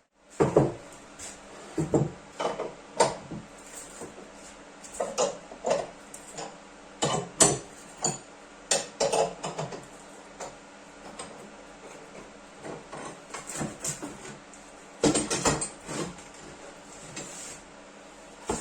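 Scattered wooden knocks and clatters of pieces being handled, a dozen or so at uneven intervals, with a busier cluster about fifteen seconds in.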